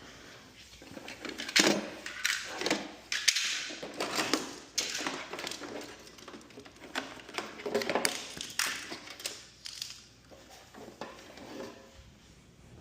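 Irregular clanks, clicks and scrapes of metal parts and hand tools being handled while a garage door opener is mounted, busiest in the first two-thirds and tapering off near the end.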